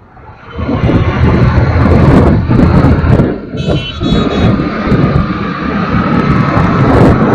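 Loud wind rumble on the microphone mixed with road and traffic noise from a moving vehicle on a busy city road, with a brief high-pitched sound near the middle.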